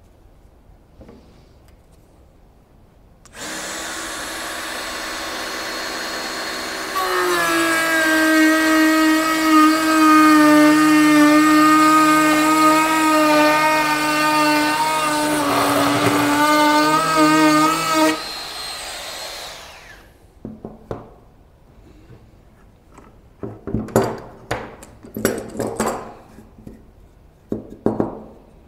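Electric router starting up and running, then louder with its pitch dipping slightly as it cuts a groove deeper into a wooden slat, for about ten seconds, before it is switched off and spins down. After that come a few short scraping and knocking sounds of the wood being handled.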